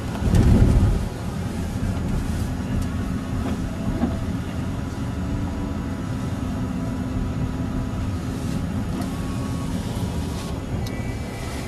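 Car driving, steady engine and road rumble heard from inside the cabin, with a louder low rush lasting about a second near the start.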